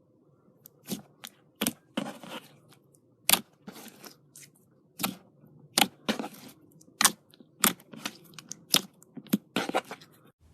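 Slime being handled, giving off irregular sharp pops and short crackling tears, about one or two a second.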